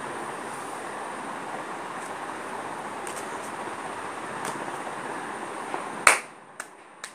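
Steady background hiss with a faint high whine, then a single sharp hand clap about six seconds in, after which the hiss drops away, leaving two small ticks.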